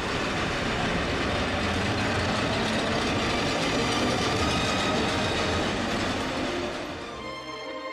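Old street tram running along its rails past the listener, a steady rolling noise that fades about seven seconds in.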